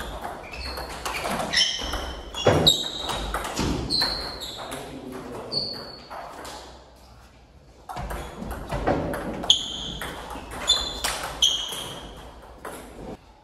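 Table tennis ball being hit back and forth in two rallies: sharp clicks of the celluloid/plastic ball off rubber-faced bats and the table, each with a short high ring, echoing in a large hall. A lull of a second or so comes midway between the rallies.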